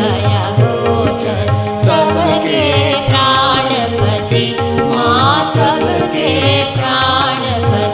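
Indian devotional song music: tabla strokes in a steady rhythm over a held drone, with a melody that bends and slides in pitch between sung lines.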